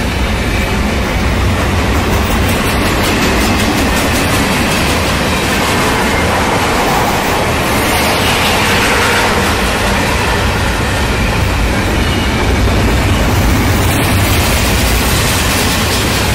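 Empty double-stack intermodal well cars of a freight train rolling past: a steady, loud rumble and rattle of steel wheels on rail, with a clickety-clack of wheels over the track.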